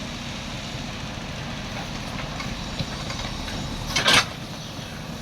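A JCB machine's diesel engine running steadily, with one short, loud, hissing burst about four seconds in.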